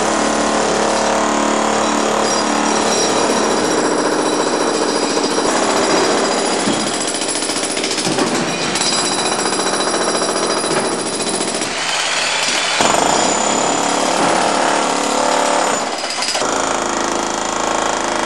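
Hydraulic breaker hammer on a mini excavator pounding and breaking up a concrete floor, a rapid continuous hammering whose sound changes abruptly several times.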